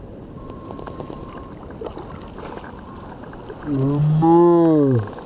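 A steady noisy wash with a few small clicks. Near the end comes a loud, low, voice-like call of about a second: it holds steady, then bends down in pitch and stops.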